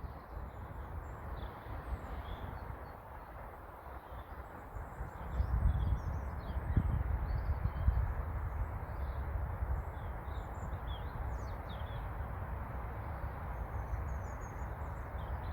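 Outdoor quiet with scattered faint bird chirps over a low rumble that grows louder about five seconds in.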